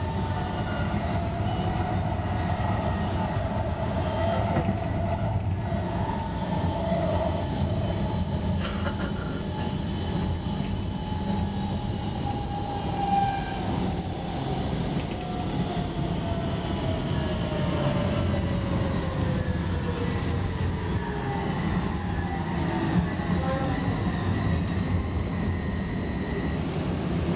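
Copenhagen Metro train heard from inside the passenger car, running with a steady rumble. Over the second half its motor whine falls in pitch as the train slows into an underground station.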